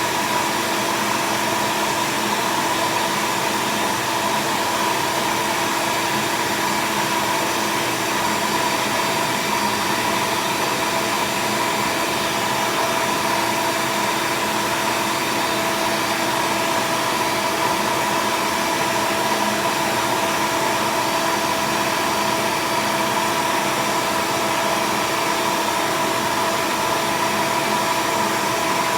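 Vacuum cleaner running steadily with a constant whine over its rushing airflow, used to suck dust and crumbs out from between laptop keys.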